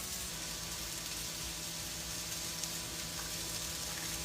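Steady sizzling of food frying in a pan.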